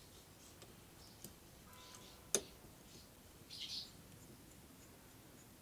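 Faint small metallic clicks and taps of a valve core tool unscrewing the valve core from a tyre's valve stem, with one sharper click a little after two seconds in.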